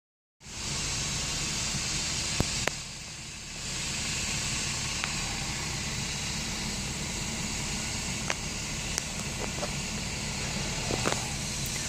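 A twin-turbine AgustaWestland AW139 helicopter running on the ground with its rotors turning: a steady turbine hiss over the rapid low beat of the main rotor. The noise dips briefly about three seconds in, and a few faint clicks sound now and then.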